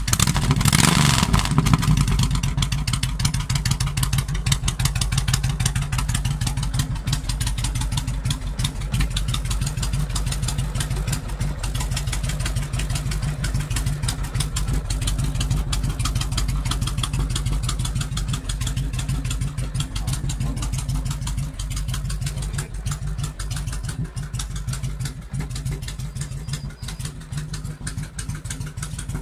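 Suzuki Intruder 1500LC's liquid-cooled V-twin engine just fired up, louder for the first two seconds as it catches, then settling into a steady, even idle.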